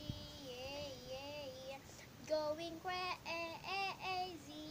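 A young girl singing alone: a soft wavering phrase, then a string of short notes from about two seconds in, and a long held note near the end.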